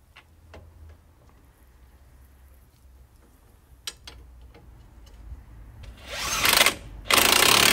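Power tool, most likely an impact wrench, tightening the shock-absorber-to-knuckle bolts: a few faint clicks, then a short burst that spins up about six seconds in, and a longer burst from about seven seconds.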